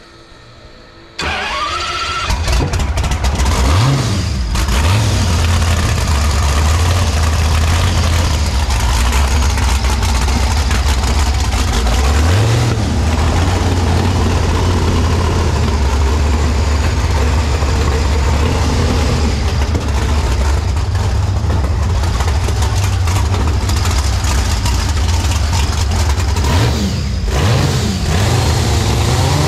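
Homemade 20-liter supercharged V12 gasoline engine firing up suddenly about a second in, then running loud and steady, with short revs blipped up a few times and again near the end.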